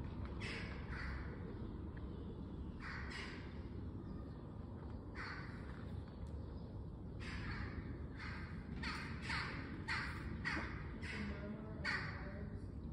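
Crow-family birds cawing: a few separate short calls, then a quicker run of about two calls a second from about seven seconds in.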